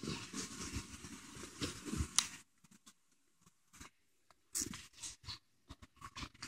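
Baby's breathy grunts and squeaky vocal noises, his 'whale sounds', with the wet mouthing of fists and teether. One long spell of noises, then a pause, then a shorter spell about halfway.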